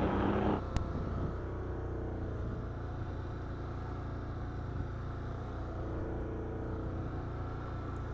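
ATV engine running steadily at low trail speed. A short rush of noise opens the stretch, with a click just after it.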